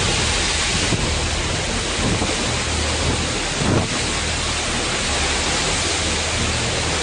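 Heavy rain and strong wind of a violent storm, a dense, steady rushing noise, with one brief louder moment just under four seconds in.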